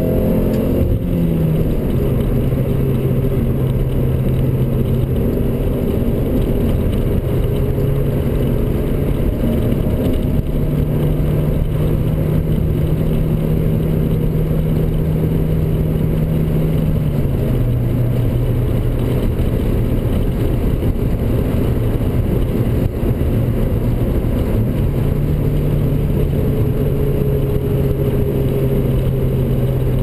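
2000 Honda Civic Si's 1.6-litre VTEC four-cylinder engine heard from inside the cabin while driving, a steady engine drone over road and tyre rumble. The engine note climbs, drops suddenly about a second in, then steps up and down a few times as the car cruises.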